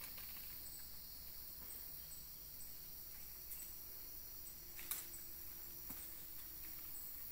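Faint tropical forest insect chorus: a steady high hiss with short, high chirps repeating about twice a second, and a couple of faint clicks.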